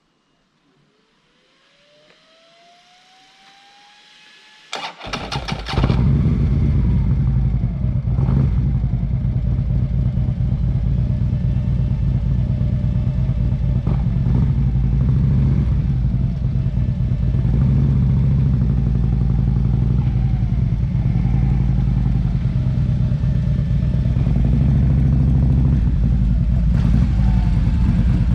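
A faint rising whine, then about five seconds in a Harley-Davidson V-twin motorcycle engine starts and runs steadily and loudly.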